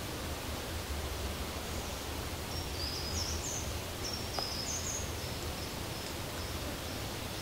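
Steady outdoor ambient hiss with a low rumble underneath, and a small bird singing a series of short, high, thin chirps from about two seconds in until shortly before the end.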